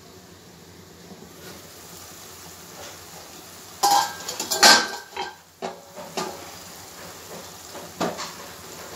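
A stainless-steel pot lid lifted off a kadai, clanking with a brief metallic ring a little under four seconds in. A few lighter clinks and knocks follow, and the opening comes over a faint steady hiss.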